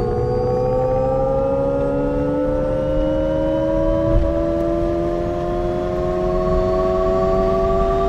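Alpine A290's synthesized drive sound: several tones rising slowly together as the electric hatch gains speed, over a steady low road rumble. A small knock sounds about four seconds in.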